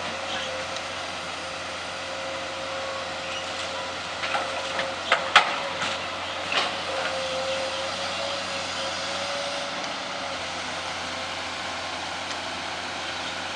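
Amphibious backhoe running steadily with a held, slightly wavering whine, and a few sharp knocks between about four and seven seconds in.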